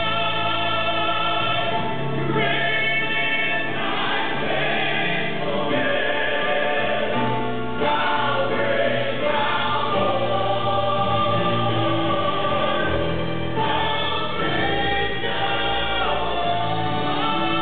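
Male southern gospel quartet singing a hymn medley in four-part harmony into handheld microphones, holding sustained chords that change every few seconds.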